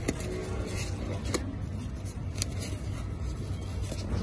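Steady low background rumble of a café table setting, with three sharp clicks or taps spread through it.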